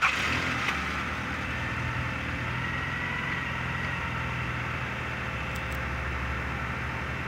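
Toyota Camry engine just after a cold start: a brief louder flare right at the start, then settling into a steady idle.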